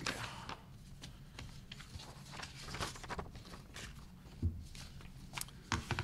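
Sheets of paper rustling and crackling as they are handled close to a table microphone, with a soft thump about four and a half seconds in and another near the end.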